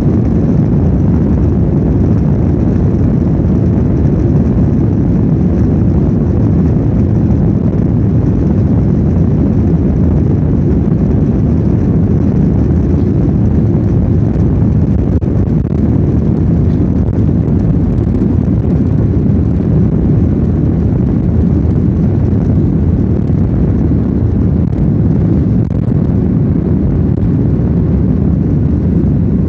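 Airliner's jet engines during takeoff: a loud, steady low rumble that holds even throughout.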